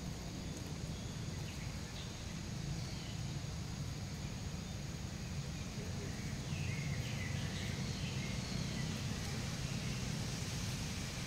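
Outdoor ambience: a steady low rumble under a hiss, with a few faint high chirping calls about six to seven seconds in.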